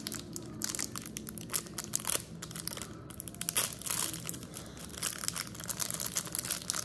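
Plastic packaging crinkling and crackling as it is handled, a dense run of quick, irregular crackles.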